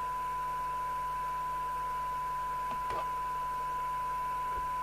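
Steady 1 kHz test tone with background hiss from the Rotel RVC240 CB radio's receiver, which is demodulating a 1 microvolt FM test signal from a signal generator during a SINAD sensitivity measurement. A faint click comes about three seconds in.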